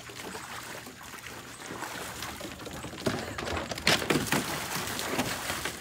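Water splashing and sloshing in a plastic kiddie pool as a dog wades and paws through it, with sharper, louder splashes about three seconds in.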